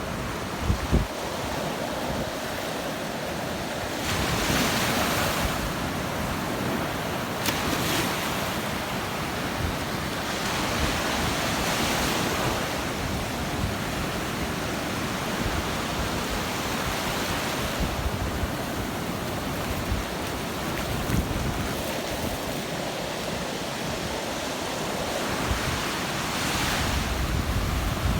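Ocean surf breaking and washing up the beach, several waves swelling and fading over a couple of seconds each, with wind buffeting the microphone.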